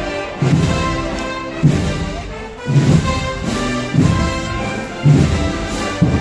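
Brass band playing a slow processional march: sustained brass chords over a heavy drum beat struck about once a second.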